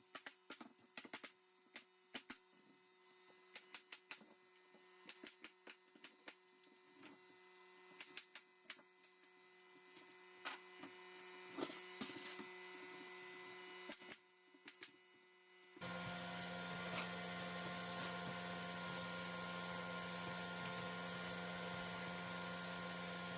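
Irregular light taps and clicks of laminate flooring planks being fitted and knocked into place. About sixteen seconds in, a steady hum starts suddenly.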